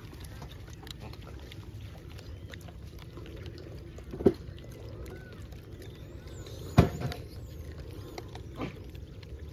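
Steady low rumble of wind on the microphone, with scattered small clicks and two sharp knocks, one about four seconds in and a louder one about seven seconds in.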